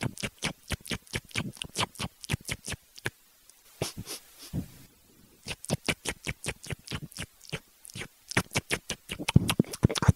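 Baby rabbits licking their paws: quick wet licking and smacking clicks, about five a second, that thin out about three seconds in and pick up again faster about five seconds in.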